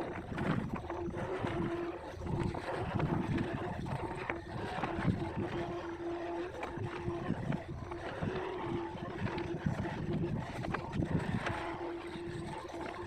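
Hitachi long-arm excavator at work: its diesel engine runs steadily, with a steady whine that comes and goes and irregular knocks.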